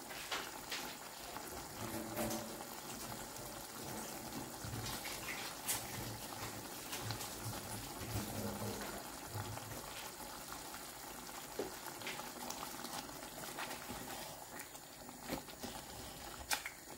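Thick chicken curry simmering in a pot on the stove, bubbling softly with scattered small pops. Near the end a wooden spoon stirs through it with a few clicks against the pot.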